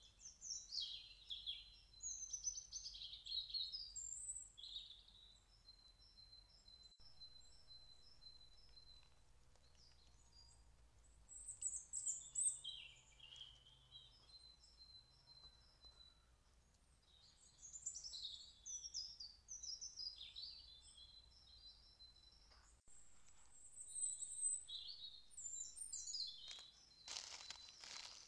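Woodland songbirds singing in bouts of quick, high, rising and falling whistled phrases, with runs of short repeated notes between them.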